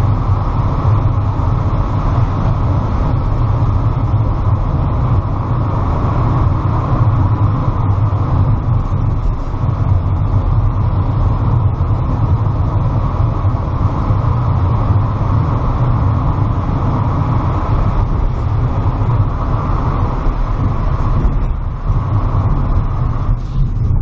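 Car driving slowly through a road tunnel, heard from inside the cabin: steady engine and tyre noise, heaviest in the low range.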